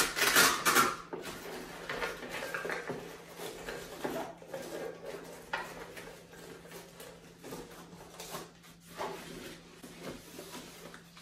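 Handling noise from a folded nylon photo light box case: fabric rustling with light knocks and clatter as the coiled power cord is tucked into its side pocket and the case is pressed flat and its handles gathered. The loudest rustle comes in the first second, then scattered softer rustles and knocks.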